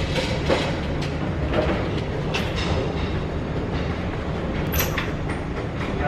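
A steady low rumble with scattered knocks and clicks, including a sharp click near the end.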